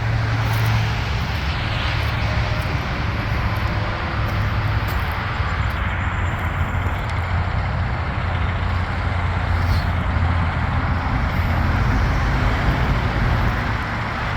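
Diesel engine of a John Deere 750K crawler dozer running steadily, a constant low hum with engine noise above it.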